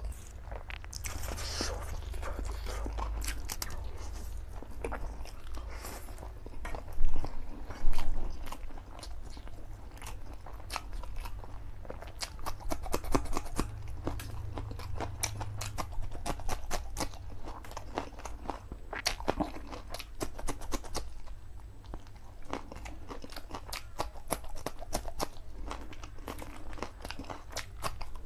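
Eating sounds from a person slurping and chewing spicy black bean noodles and crunching raw green chillies, a dense run of small wet clicks and crunches. Two loud sharp bursts come about seven and eight seconds in.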